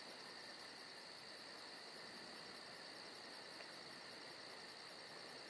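Crickets chirring faintly and steadily, with a fine, fast high pulsing over the top.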